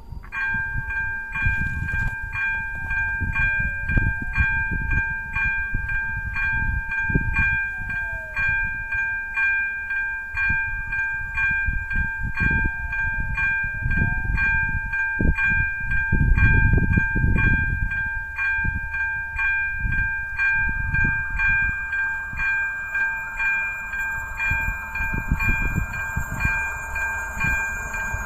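AŽD 97 level-crossing warning bell, the electronic type 02, ringing a fast, even ding of several tones together about twice a second, which signals that a train is coming. In the last several seconds the rushing noise of the approaching train rises beneath it.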